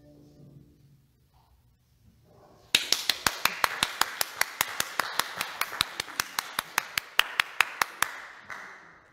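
The final cello and piano note fading away. After a short pause, one person claps steadily near the microphone, about five claps a second for some five seconds, and the clapping trails off near the end.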